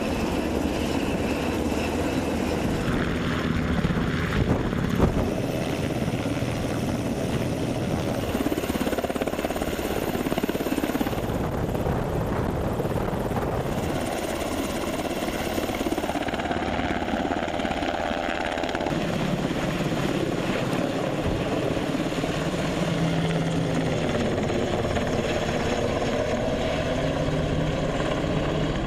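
UH-60 Black Hawk's rotor and twin turboshaft engines running steadily while it hovers and climbs away with a vehicle on its sling hook. A single sharp knock sounds about five seconds in.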